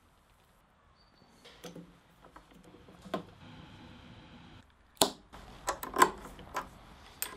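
Small metal machine parts being handled and fitted by hand: scattered sharp clicks and taps, with a quick run of louder clicks near the end.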